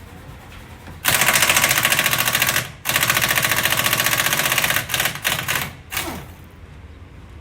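Pneumatic impact wrench hammering in two long rattling runs of about two seconds each, then a few short bursts, as lug nuts on a wheel are spun off or driven home.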